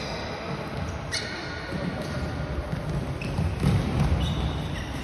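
Floorball match on an indoor court: players' feet thudding on the sports floor, with short high squeaks and a sharp stick-or-ball click about a second in, echoing in the hall.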